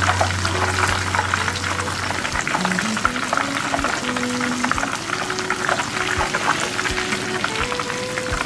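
Breaded, cheese-stuffed pork cutlet rolls deep-frying in a pan of hot oil: a steady, dense crackle and sizzle.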